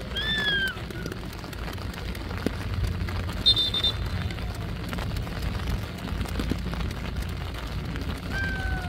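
A referee's whistle gives one short blast about three and a half seconds in, over a steady low outdoor rumble. A single shouted call comes near the start and another near the end.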